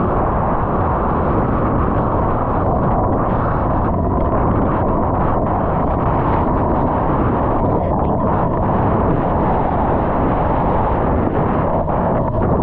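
Loud steady rush of wind and churning surf buffeting the microphone.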